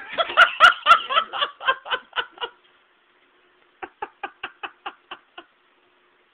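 Hearty laughter close to the microphone: a long run of quick laughs over the first two and a half seconds, then, after a short pause, a second burst of about eight short laughs.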